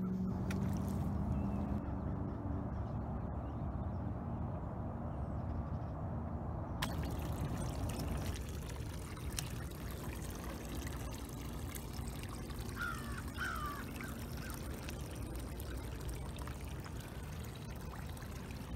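Shallow creek water trickling, a steady hiss that turns suddenly brighter about a third of the way in. A bird calls twice near the two-thirds mark.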